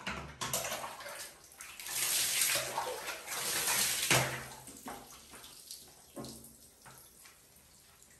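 Water from a shower sprayer hissing and splashing onto a bathing monkey. The spray is strongest from about two to four seconds in, with a few knocks, then eases off.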